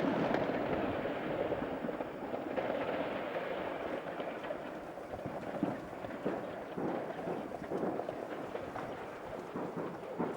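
Fireworks crackling and rumbling in a continuous dense hiss, slowly fading, with scattered sharper pops, one louder about halfway through.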